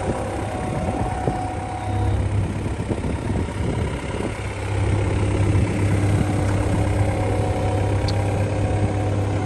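John Deere 85G excavator's Yanmar diesel engine running steadily at idle, running smoothly, a sign that it is in good health.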